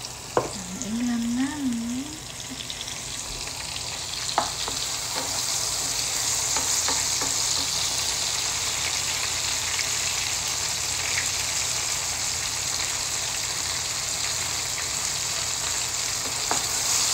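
Cherry tomato halves and chopped aromatics sizzling in hot oil in a frying pan, the sizzle growing stronger a few seconds in, while a wooden spatula stirs them and taps the pan sharply a few times.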